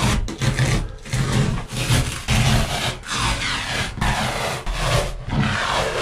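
Glued-on fabric-backed lining being peeled and torn off a boat cabin's wooden wall by hand, in a run of about eight ripping pulls, a little more than one a second.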